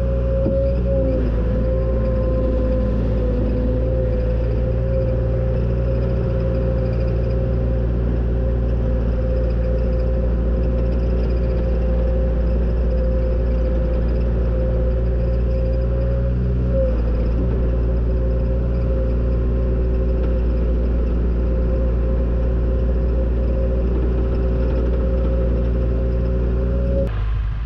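John Deere 270 skid steer's diesel engine running steadily, heard from inside the cab, with a steady high whine over it that dips briefly about a second in and again around 17 seconds in. The sound breaks off abruptly near the end.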